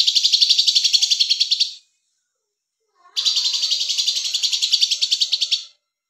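Caged lovebird giving two long, rapid chattering trills of about ten notes a second, the first lasting nearly two seconds and the second, starting about three seconds in, lasting over two seconds. This is the long 'ngekek' trill that Indonesian lovebird keepers prize.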